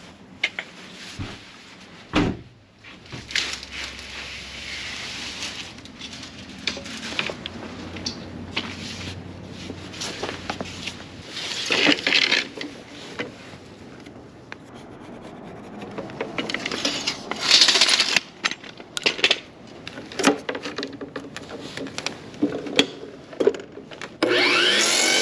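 Thin wood paneling being cut and handled: several bursts of sawing, with scattered knocks and clatter of boards. Near the end a power tool starts up abruptly and runs loudly.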